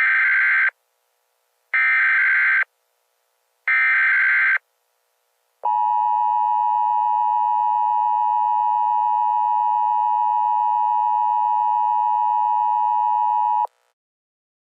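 Emergency Alert System tones: three short bursts of SAME header data, each about a second long with a second's gap between them, then the steady two-tone EAS attention signal for about eight seconds, cutting off sharply. Together they mark the start of an emergency alert message.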